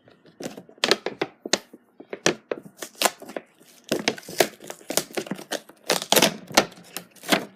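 A doll's cardboard box and plastic packaging being handled and opened by hand: a quick, irregular run of clicks, taps and knocks.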